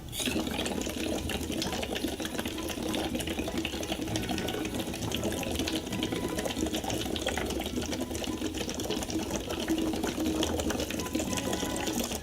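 A long, steady exhale blown through a drinking straw into water, making a continuous fine bubbling that starts and stops abruptly, about twelve seconds long. It is a resistance-breathing exercise: the water makes it harder to blow.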